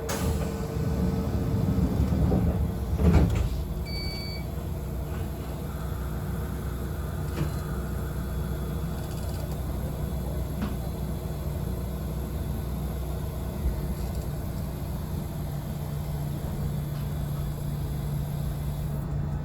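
Yoro Railway electric train heard from the front of the car: a steady low hum, with a loud clunk about three seconds in and a short electronic beep just after it.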